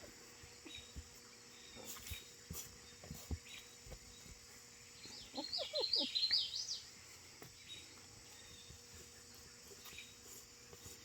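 A dog digging in dry dirt, with faint scattered scratching and scraping of paws and soil. About halfway, a short run of quick, high, rising chirps is the loudest sound.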